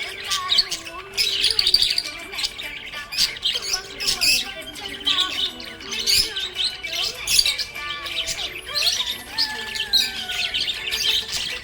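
A flock of budgerigars chirping and squawking in quick, overlapping bursts, with a soft tune running underneath.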